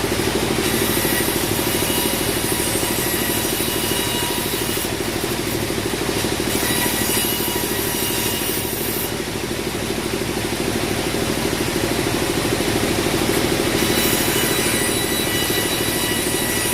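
Bandsaw sawmill running with a steady pulsing hum. Stretches of high hiss come and go, about a second in, around seven seconds in, and again near the end, as the blade cuts through teak.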